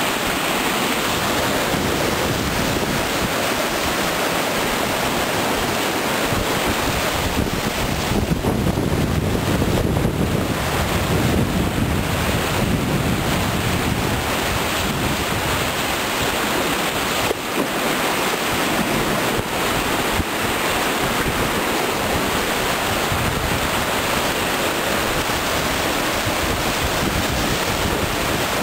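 Continuous whitewater rapids rushing around a cataraft: a steady, loud wash of water, with wind on the microphone and a swell in the low rumble for a few seconds near the middle.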